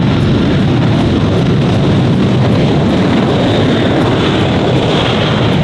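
Jet aircraft engines, a loud steady roar.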